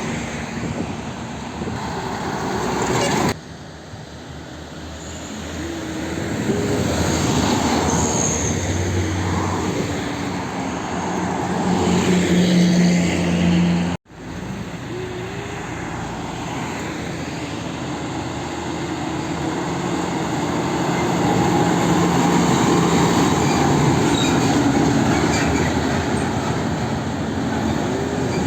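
Road traffic with heavy diesel trucks passing close by, their engine drone rising and falling. The sound breaks off abruptly twice, a few seconds in and about halfway through.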